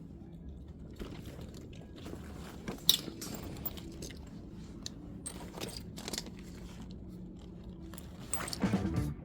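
Scattered crinkling and clicking handling noises over a steady low hum, with the sharpest click about three seconds in; a louder pitched sound comes in near the end.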